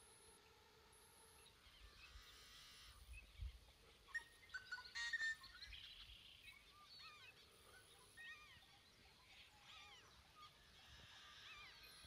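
Marsh birds calling, faintly: many short chirps and quick sliding calls, with a brief cluster of louder calls about five seconds in. A faint steady hum fills the first second and a half.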